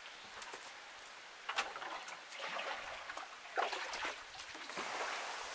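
Muddy standing water being scooped with a plastic bucket while bailing out a flooded pit: sloshing and trickling, with sharp splashes about a second and a half in, again about three and a half seconds in, and near the end.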